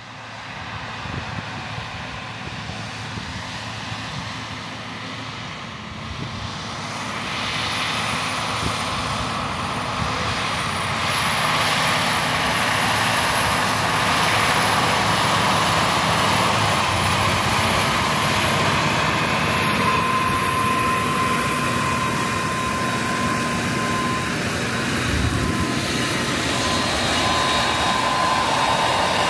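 Versatile DT620 track tractor's diesel engine running steadily under load while pulling a planter, mixed with a thin high whine of drone propellers. It grows louder about a third of the way in, then holds steady.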